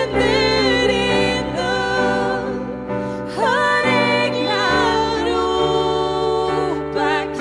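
Worship song: a sung vocal line with vibrato over sustained electric piano or keyboard chords.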